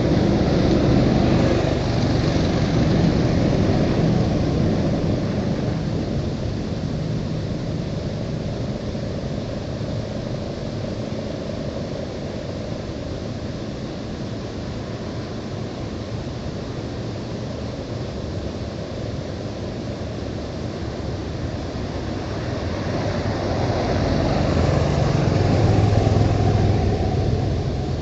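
Road traffic on a mountain highway: vehicles pass close, swelling up and fading away near the start and again near the end, over a constant rushing noise in between.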